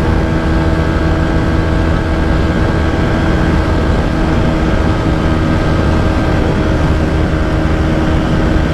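TVS Apache RTR 160 4V's single-cylinder engine running flat out at high revs near its top speed of about 131 km/h, holding a steady pitch, with heavy wind noise over it.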